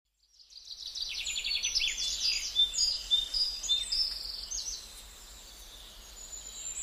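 Small birds chirping and singing in quick, high repeated notes and short glides. The song fades in at the start and thins out toward the end.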